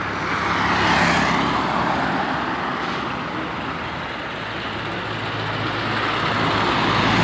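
Road traffic: vehicles passing on the street, with tyre and engine noise that swells about a second in and builds again near the end, over a low steady engine hum.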